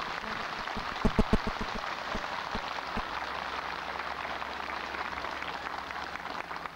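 Crowd applauding, a dense steady patter of clapping, with a quick run of loud claps or knocks close by about a second in.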